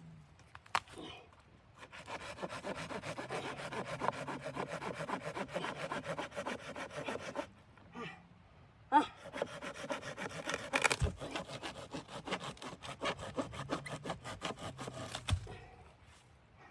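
Hand saw cutting wood in quick, even back-and-forth strokes, in two runs with a short pause between them. A sharp knock starts the second run.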